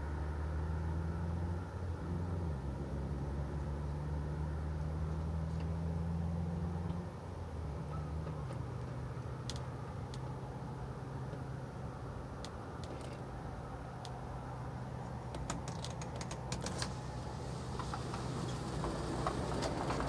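Low steady engine-like hum, easing off about seven seconds in, with a scatter of light clicks and ticks near the end.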